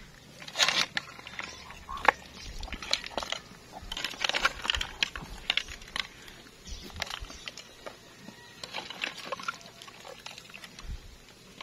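Clam shells clinking against each other and a metal ladle scraping in a pot as cooked clams in coconut milk are scooped out, in scattered irregular clatters.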